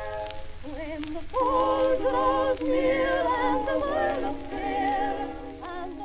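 Background music: an early-1900s gramophone recording of singing with wide vibrato, over a steady low hum.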